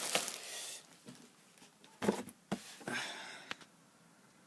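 A hairdryer's cardboard box and packaging being handled: a few short rustles and knocks in the first three seconds or so, then it goes quiet.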